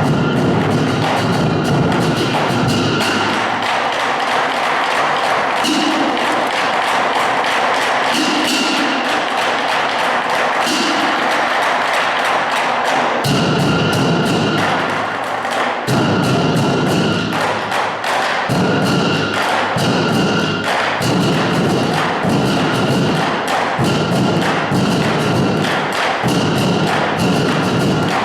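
A band playing music, with knocking percussion. For the first part the low end falls away, then low strokes come in and settle into a steady beat of about one a second.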